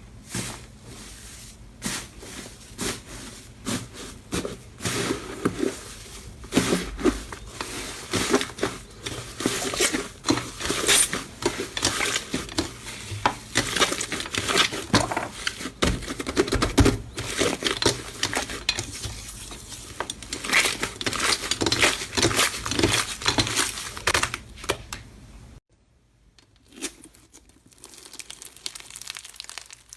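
Slime being squished and pressed by hand, making many quick, irregular clicks and pops. It cuts off abruptly near the end and a quieter stretch of the same kind of clicking follows.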